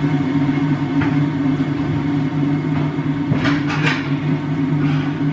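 Morphy Richards electric kettle heating up with a loud, steady hum and rumble. The owner calls it the loudest kettle in the world. A few light knocks come about a second in and again around three and a half seconds.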